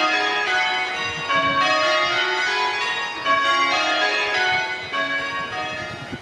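A peal of church bells ringing changes, the bell notes struck one after another in quick falling runs that repeat over and over.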